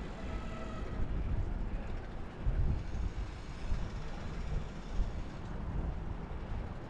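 Wind buffeting the microphone of a camera riding on a moving bicycle, an irregular low rumble, with the hum of bicycle tyres rolling on asphalt.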